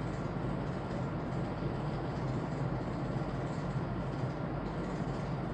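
Steady low hum and hiss of an old film soundtrack between narration lines, with no bangs or other events.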